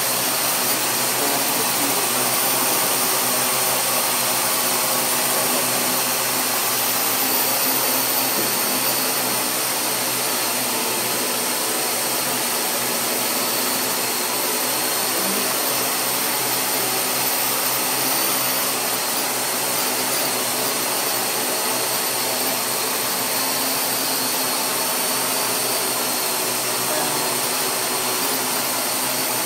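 Parrot AR.Drone 2.0 quadcopter in flight: its four electric motors and propellers give off a steady whirring whine, a few thin high tones over a rushing noise, holding an even level throughout.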